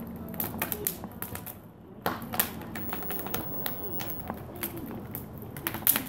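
Wood fire blazing in a metal garden incinerator bin, crackling with irregular sharp pops and snaps, with a brief lull a little before the middle.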